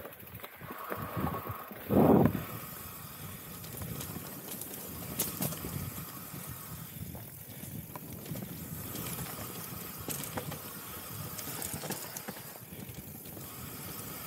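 Mountain bike rolling down a dirt trail: tyres running over dirt and stones with small knocks and rattles from the bike, and one short loud sound about two seconds in.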